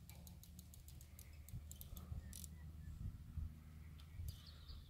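Faint outdoor ambience: a steady low wind rumble, a run of quick ticks over the first couple of seconds, and a faint bird chirp a little after four seconds in.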